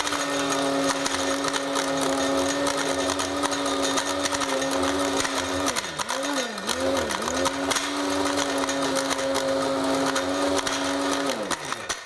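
Cuisinart Grind Central electric blade grinder running steadily with a pitched motor whine and a clatter as it grinds nutmeg in its stainless steel bowl. The motor's pitch dips three times about six seconds in, and it winds down just before the end.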